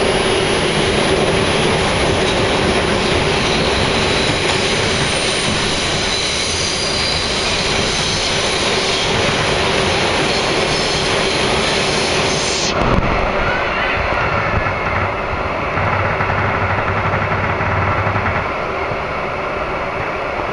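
Subway car running on its rails, heard from inside the car: a loud, steady rumble and hiss with a steady hum through it. About 13 s in, the high hiss falls away abruptly with a knock, and the running noise goes on duller.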